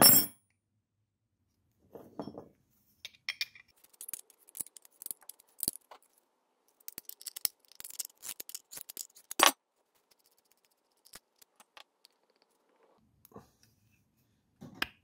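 Metal hand tools clicking and scraping on the studs and nuts of a small electric contactor: a ring spanner working a contact-pin nut while a mole grip holds the stud. Irregular sharp clicks and short rattles, loudest right at the start and again about nine and a half seconds in.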